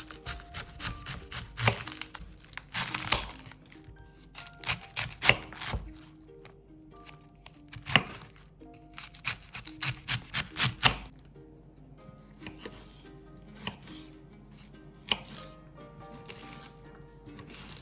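A knife chopping food on a cutting board, in irregular strikes with a quick run of about a dozen strokes in the middle, over soft background music.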